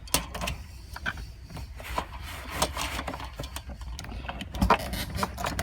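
Irregular knocks, clicks and scraping as a stuck fuel pump assembly is twisted and worked by hand in the fuel tank opening, with a few louder knocks near the end.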